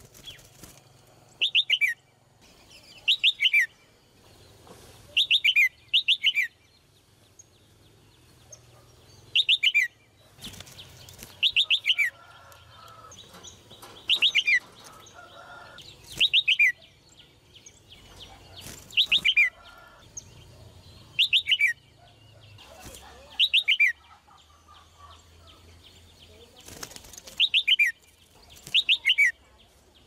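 Red-whiskered bulbul calling: short, loud bursts of rapid notes sliding down in pitch, mostly in pairs, repeated every couple of seconds.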